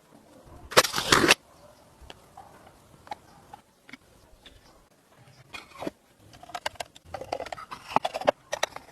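Workshop handling noises: one loud hissing burst of about half a second near the start, then scattered clicks, knocks and short scrapes.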